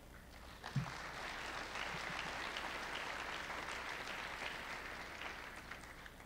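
Audience applauding, swelling about half a second in and fading off near the end, with a brief low thump just as it starts.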